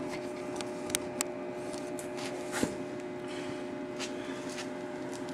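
A steady electrical hum, with a few light clicks and knocks of handling nearby.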